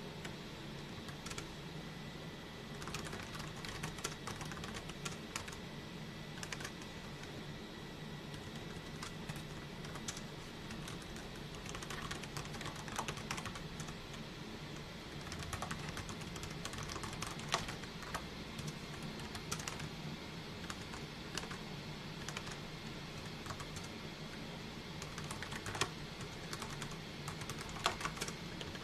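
Typing on a computer keyboard: a run of irregular keystroke clicks, with a few sharper, louder strokes in the second half, over a low steady hum.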